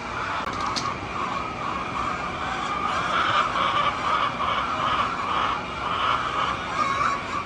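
Flock of hens calling together in a steady din that turns into repeated pulsing calls about twice a second from about three seconds in.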